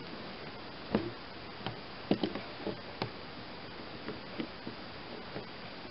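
Scattered small clicks and taps, about ten of them at irregular intervals and the sharpest about one and two seconds in, over a steady low hiss. They come from hands and fingers working old fuel hoses and hose clips on a plastic lawn-tractor fuel tank, trying to free them from the tank fittings.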